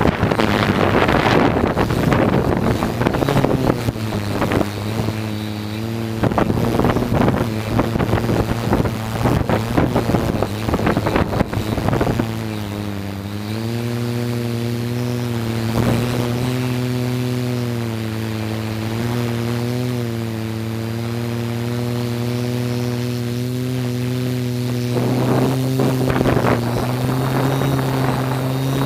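Drone's motors and propellers humming steadily, heard from on board. The pitch shifts slightly as it manoeuvres, and wind buffets the microphone for about the first twelve seconds.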